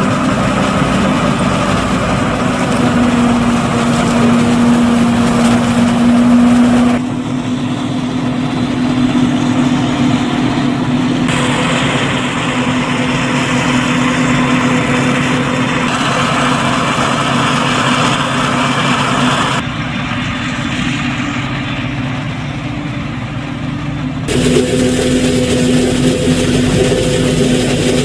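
Large tractor and forage harvester engines running steadily during maize silage chopping, with a constant engine hum. The mix changes abruptly about 7, 11, 20 and 24 seconds in.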